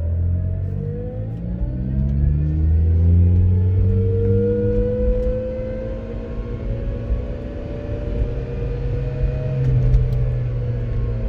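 Car engine running and revved up, with a constant whine from a failing AC compressor bearing. The whine climbs in pitch with engine speed over the first few seconds, holds, then eases slightly near the end.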